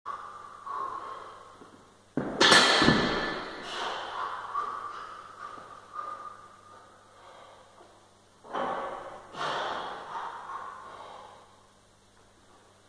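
A man breathing hard and forcefully through heavy barbell bench press reps, with sharp gasping breaths: the loudest comes about two seconds in, and two more a second apart about two thirds of the way through.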